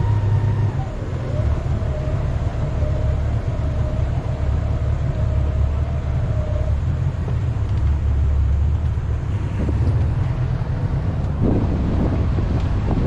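Small tow boat's engine running steadily at low speed, a heavy low rumble with a thin whine that drops in pitch about a second in and fades out about halfway through.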